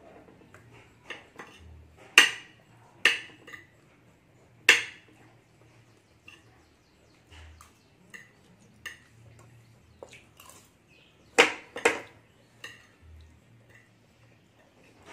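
A metal spoon clinking and scraping against a ceramic plate while eating, in scattered sharp clinks; the loudest come about two to five seconds in and as a close pair about eleven to twelve seconds in.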